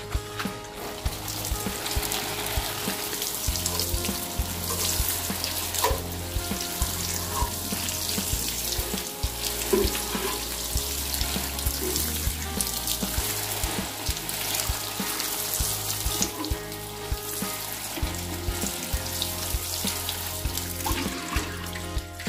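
Water sprinkling steadily from a metal watering can's rose onto chili plant leaves, with background music underneath.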